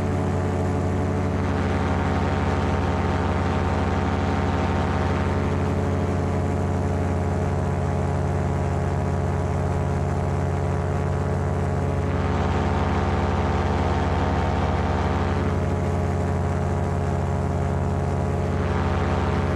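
Paramotor engine running at steady throttle in flight, its pitch unchanging, with wind hiss on the microphone that swells and fades several times.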